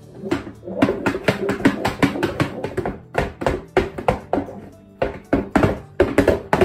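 A golf ball rolling and knocking around inside a lidded box as the box is tilted back and forth, a rapid clatter of knocks. It comes in three spells with short lulls between.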